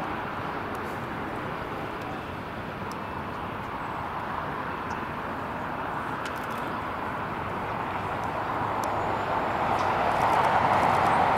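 Jet airliner engines running at the airport: a steady rushing whine that grows louder toward the end.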